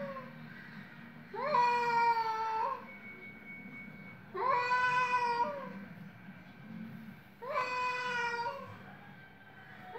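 Two domestic cats yowling at each other in an aggressive standoff: three long, drawn-out caterwauls about three seconds apart.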